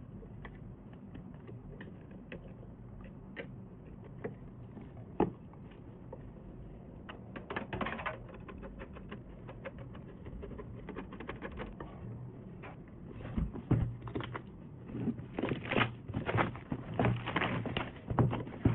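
Hands handling PC components and small hardware: scattered small clicks and taps, sparse at first, then busier and louder in the last few seconds. A low steady hum sits underneath.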